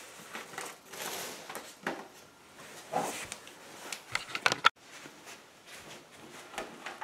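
Rustling and handling of papers and packaging, then a run of knocks and clicks as the camera is picked up and moved, ending in a sharp click and a brief break in the sound; quieter handling noise follows.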